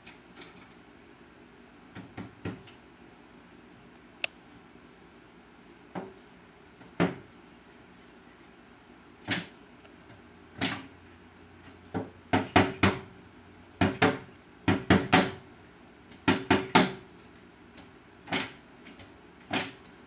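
Male pileated woodpecker pecking at a window: sharp knocks, heard from inside through the glass. They come singly and a few seconds apart at first, then about halfway through in quick runs of three to five.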